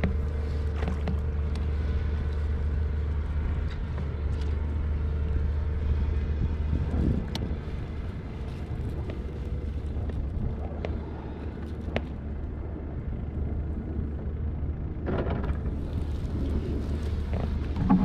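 Steady low rumble of wind on the microphone over open water, with a few light clicks and some water noise as a fish is handled over the bellyboat's side.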